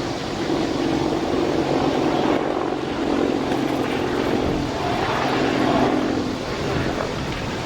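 Military helicopter running, its turbine and rotor making a loud, steady noise.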